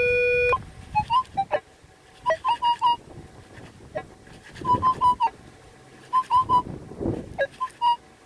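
Metal detector sounding a long steady tone that cuts off about half a second in, then short high beeps in quick clusters of three or four as the coil passes back and forth over a buried target.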